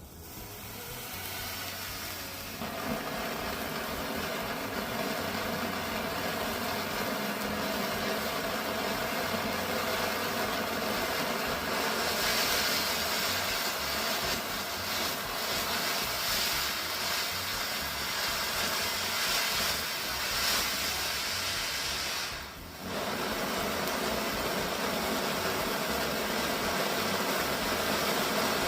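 TNT Showcase cone fountain firework burning with a steady hissing spray. It builds over the first couple of seconds, grows brighter and sharper in the middle, and drops out briefly about 22 seconds in before carrying on.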